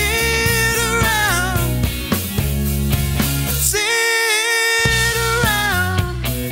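A soul, disco and funk three-piece band playing live: a sustained, bending melodic line over a steady beat. The low end drops out briefly about four seconds in.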